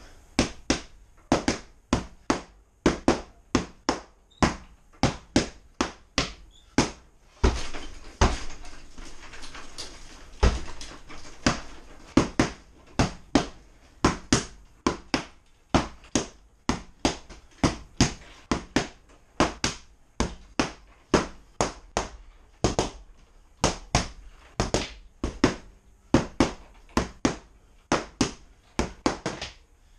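A heavy punching bag being struck over and over at a steady pace, about two sharp hits a second, with a quicker, busier flurry for a few seconds around eight to eleven seconds in.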